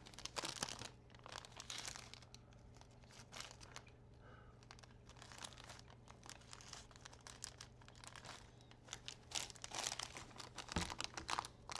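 Plastic parts bags crinkling and rustling in irregular bursts as small screws are picked through, louder near the end.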